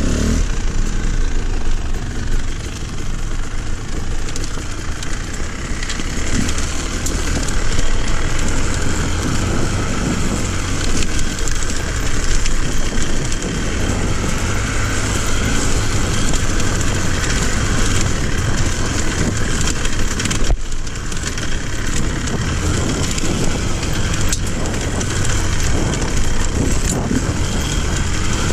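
Dirt bike engine running steadily as the bike rides a rough, rocky trail, with rattling and clatter from the bike and stones over rough ground.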